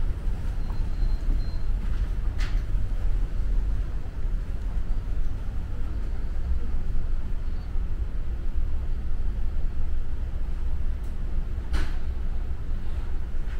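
Steady low rumble of background noise, like traffic or wind on the microphone, with two brief ticks, one about two seconds in and one near the end.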